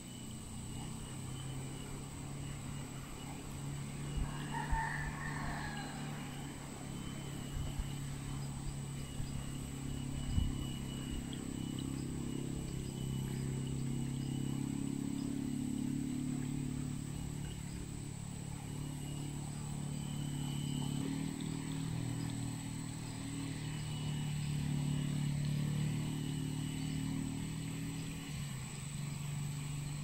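A rooster crows once, about four seconds in, over a steady low hum that runs throughout, with a few soft knocks.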